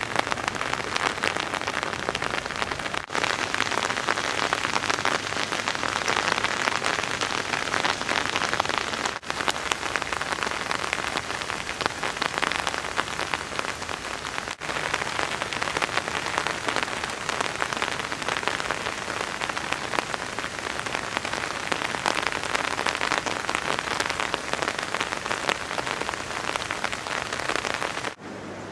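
Heavy rain falling steadily, a dense crackling patter of drops hitting a nearby surface. It breaks off for an instant three times.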